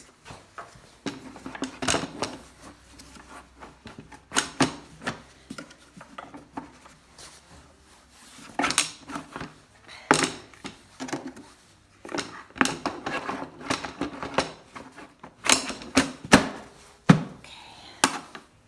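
Small metal hand tools and parts of a DeWalt DW735 thickness planer clinking and clattering irregularly as it is put back together by hand, with no motor running.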